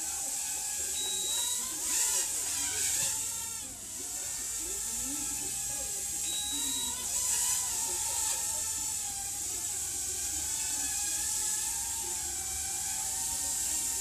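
Overmax X-Bee Drone 1.0 mini quadcopter in flight, its small motors and propellers buzzing with a pitch that wavers up and down as it manoeuvres. The buzz swells louder twice, about two and seven seconds in, and a short high beep sounds twice.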